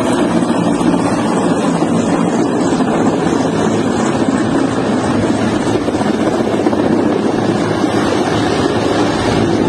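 Large military transport helicopter flying low overhead, its rotor and engines making a loud, steady noise, with wind buffeting the microphone.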